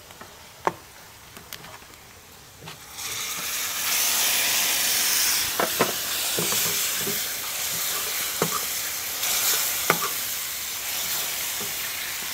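Chopped tomatoes sizzling in hot oil with browned onion masala in a steel kadhai. The sizzle sets in suddenly about three seconds in, after a few light taps. A steel ladle stirs, clinking and scraping against the pan now and then.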